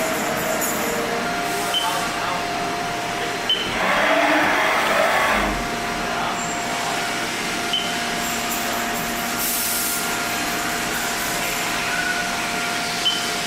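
Haas VF-4 vertical machining center running with a steady mechanical hum and whine, a few short clicks, and a rushing, hissing burst of about a second and a half starting about three and a half seconds in.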